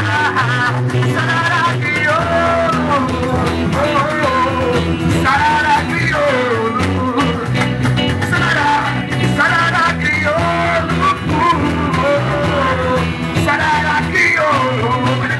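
Band music without lyrics, an instrumental break: a melodic lead line with bends and glides over steady bass and rhythm backing.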